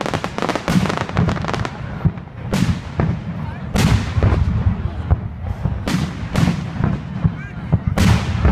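Aerial fireworks bursting: a rapid crackle of many reports in the first second and a half, then single loud booms about a second apart.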